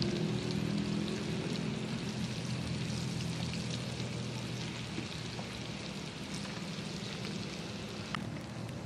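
Flour-coated banana stem slices deep-frying in hot oil in a pan: a steady sizzle with small crackles.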